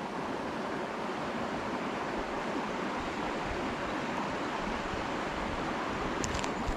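Steady rushing of a stream's running water, with a few faint clicks about six seconds in.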